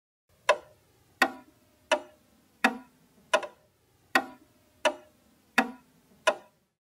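Clock-like ticking: nine sharp, evenly spaced ticks, about three every two seconds, each with a short ringing tail.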